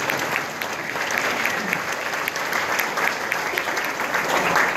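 Audience applauding at the end of a song: many hands clapping in a dense, steady patter.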